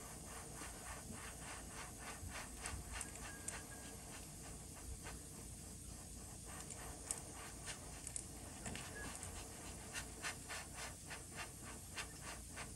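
Airbrush blowing air onto freshly sprayed paint on a crankbait to dry it: a faint hiss broken by many short puffs, which come more often in the second half.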